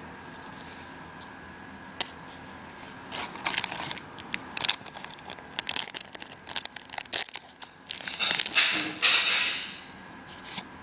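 A foil trading-card booster pack being torn open and crinkled by hand, starting about three seconds in as a run of irregular crackles. The loudest, longest tearing rustle comes near the end.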